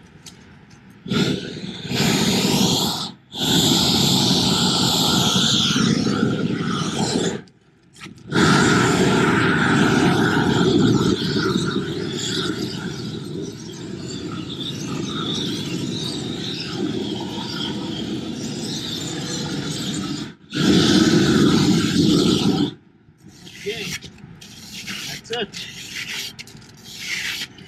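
Propane roofing torch running in four blasts, the longest about twelve seconds, with short breaks where the flame is cut back, as it heats the bottom edge of the roofing membrane to bond it. Near the end, short scraping and rubbing as the warmed membrane is pressed down by hand.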